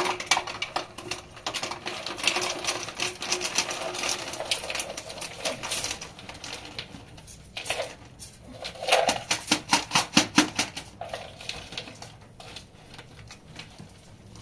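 Dense crinkling and rapid clicking of plastic being handled: a plastic bag and a plastic bowl worked by hand against metal pans, in two busy stretches, about two seconds in and again about nine seconds in.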